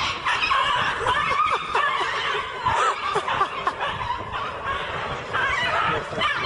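Several people laughing and giggling together, a dense, continuous run of laughter.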